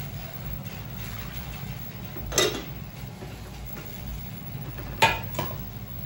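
Dishes clinking: two sharp clinks about two and a half seconds apart, the second followed quickly by a lighter one, over a steady low hum.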